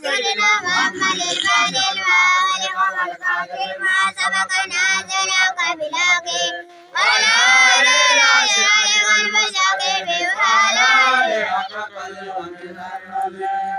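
A high-pitched voice singing a melody in long, wavering held phrases; it breaks off briefly about six and a half seconds in, comes back louder, and fades near the end.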